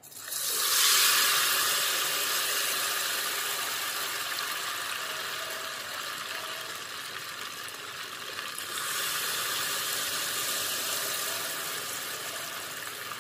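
Thin ghevar batter poured into very hot oil in a small pot, sizzling and frothing hard. The sizzle bursts up as the first batter hits the oil, dies down slowly, and swells again about nine seconds in as more batter goes in.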